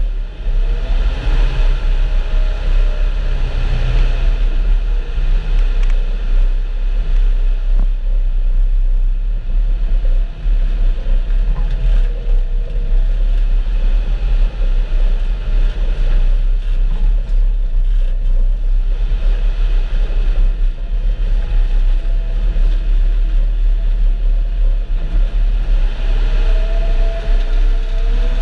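Diesel engine of farm machinery running steadily while loading a feed mixer wagon, with a deep rumble and a whine that wavers in pitch and grows stronger near the end.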